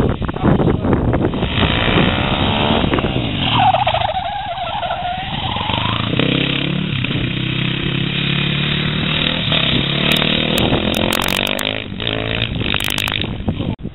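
Supermoto motorcycle engine revving hard as it rides around a track, its pitch climbing and dropping with the throttle and gear changes, with a sharp swoop up and back down about four seconds in.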